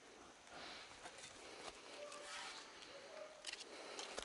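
Faint distant dogs barking a few times, with soft rustles and clicks close by.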